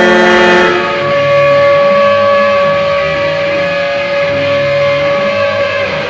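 A hockey arena goal horn's steady, multi-tone blast cuts off under a second in, and a rock goal song led by guitar takes over, with one long held note.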